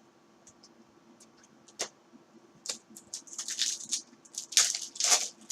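Trading cards being handled and slid against each other, with a sharp click about two seconds in and a run of loud, crisp rustling over the last few seconds.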